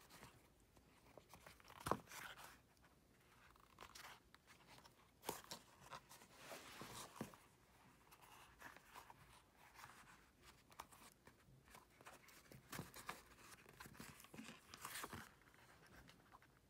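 Faint scraping and rustling of waxed thread being drawn through pre-punched holes in leather during hand stitching, in short bursts, with a sharp tap about two seconds in.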